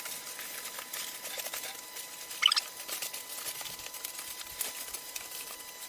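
Crinkling and rustling of an aluminium-coated insulation sheet and nylon tent fabric as the sheet is spread out on the tent floor, with a sharper crinkle about two and a half seconds in.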